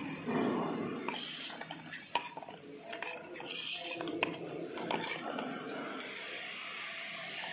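Plastic bottles knocking and clinking against each other and against a stainless steel turntable plate as they are set down and crowd together, a string of irregular sharp clicks and knocks over a steady background noise.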